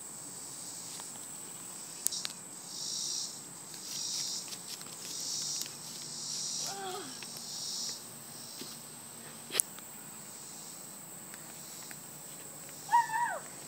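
Insects in the summer trees buzzing in a series of high-pitched pulses about a second long each, with a single sharp click about two-thirds of the way in.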